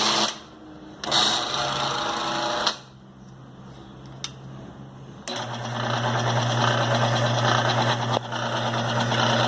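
Electric motor of a homemade drill press switched on in two short bursts, then running steadily from about halfway through with a constant hum and whir.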